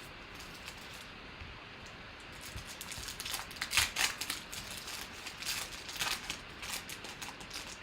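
Trading cards and their packaging being handled: a string of quick, scratchy rustles and clicks, starting about two and a half seconds in.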